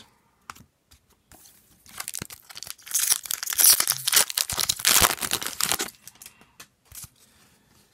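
Upper Deck hockey-card pack's foil wrapper being torn open and crinkled. It is a dense crackling that starts about a second and a half in and stops about six seconds in, followed by a few small clicks as the cards are handled.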